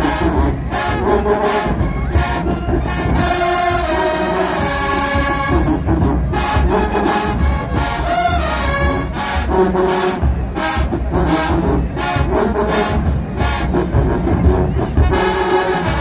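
HBCU marching band playing loudly: massed brass (trombones and trumpets) over a steady beat of drums.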